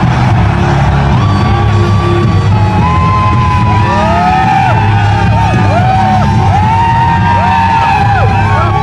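Loud arena music with a heavy, steady bass beat; from about a second in, a crowd adds many overlapping whoops and yells that slide up and down in pitch.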